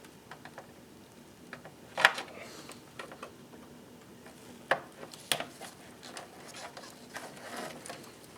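Scattered light clicks and knocks of power-supply cables and plastic connectors being handled inside an open desktop PC case while the 24-pin motherboard power connector is plugged in. The sharpest clicks come about two seconds in and again around five seconds.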